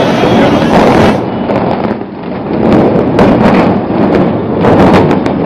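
Explosive demolition of a high-rise tower block: a loud, continuous rumble of the collapse, with two flurries of sharp crackling from the demolition charges, about three seconds in and again near the end.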